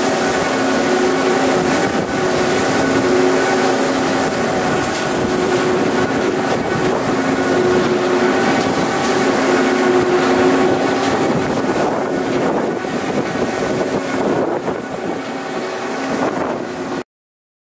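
Tractor engine running steadily under load, driving a Kuhn Knight VT180 vertical feed mixer through its 1000 PTO, with the mixer's drive turning. The sound cuts out abruptly for about a second near the end.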